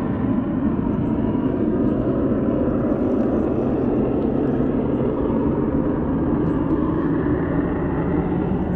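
Steady, even outdoor rumble with no distinct events or rhythm.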